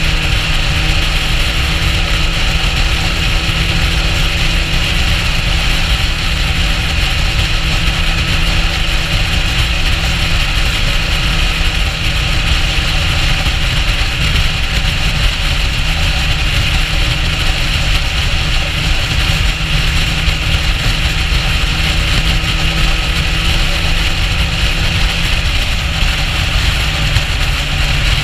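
Motorcycle engine running at a steady cruising speed, with wind rushing over the microphone.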